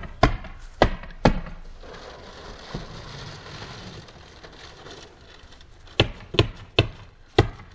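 Hammer pounding on a house wall as a worker fastens Tyvek house wrap: sharp single strikes, three in the first second and a half, then four more in quick succession near the end.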